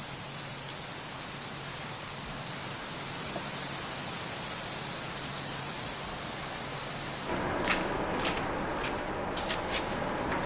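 Steady hissing background ambience. About seven seconds in it changes abruptly to a rougher, fuller background noise with a handful of sharp clicks or taps.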